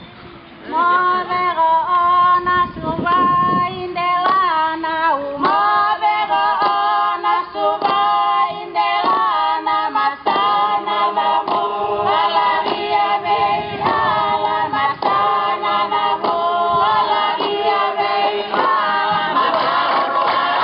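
A group of voices singing the accompaniment to a Fijian meke, held notes with several parts together and sharp strikes keeping time; it starts up about a second in.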